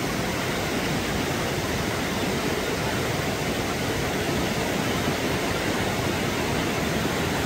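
Baspa river rushing: a steady, even roar of fast mountain water.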